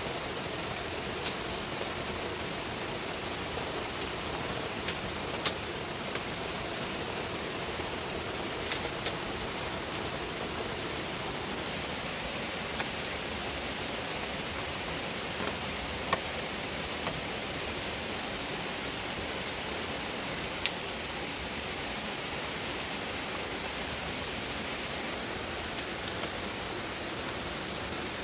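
Steady outdoor hiss with a thin high whine. Short, rapid chirping trills repeat in the second half, and a handful of sharp isolated clicks or taps fall at irregular intervals.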